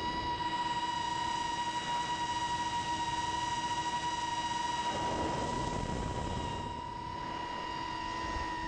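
A long-range FPV quadcopter's brushless motors and propellers whine at a steady pitch in flight, with a rush of noise swelling about five seconds in.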